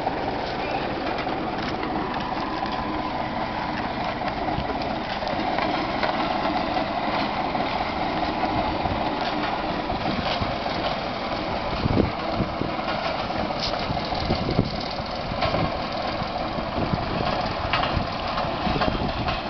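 A road roller's diesel engine running steadily, with a few short knocks heard now and then through the middle and later part.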